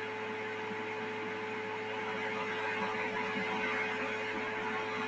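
Steady electrical background hum with hiss: one held tone over an even noise that does not change.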